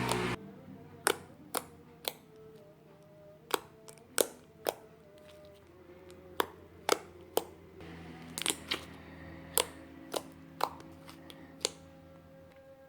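Crunchy slime being pressed and worked by hand, giving sharp irregular crackles and pops, about one or two a second.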